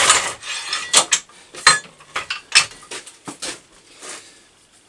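Bent steel frame tubes being handled and knocked against metal: a rustle, then a handful of sharp clinks and knocks with brief ringing, tailing off toward the end.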